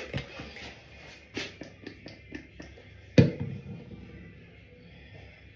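Light taps and clicks from handling a skincare product container, with one louder knock about three seconds in that rings briefly.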